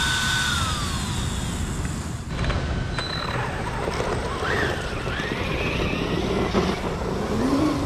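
Electric motor of an Arrma Granite 3S RC monster truck: a high steady whine that slides down in pitch about a second in, then whining that rises and falls in pitch as the truck speeds up and slows on the sand, over a steady noisy background.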